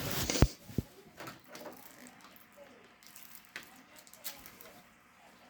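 Faint hand-handling noise: a few sharp clicks and knocks, the first two close together near the start and another about halfway, with soft rustling between them, as he works to get the CD's wrapping open without a knife.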